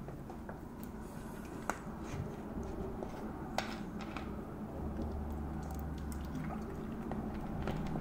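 Quiet background with a steady low hum and two faint, sharp clicks, the first a little under two seconds in and the second a little over three and a half seconds in.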